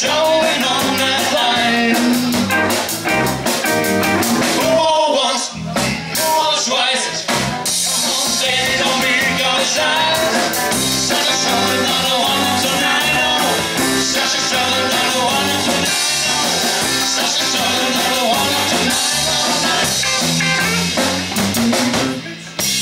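Live rock and roll band playing: electric guitars and a drum kit, with singing.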